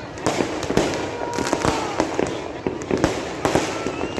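Fireworks going off in rapid, irregular bangs and crackles, with faint rising whistles among them.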